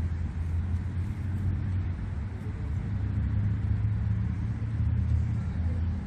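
Steady low rumble of city traffic, with no single event standing out.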